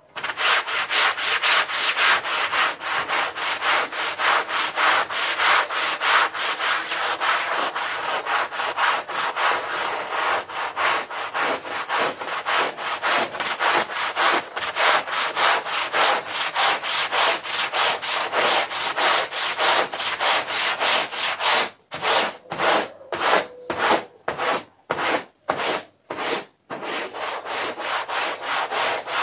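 Stiff-bristled push broom scrubbing a wet, soapy carpet in quick back-and-forth strokes, about three a second. From about 22 to 27 seconds in the strokes come slower and separate, with short pauses between them, then run steady again.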